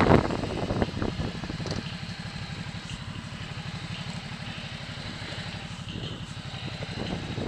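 Ducati Multistrada engine running at low revs as the bike rolls slowly away, a steady low throb of firing pulses. It is louder in the first second, then settles.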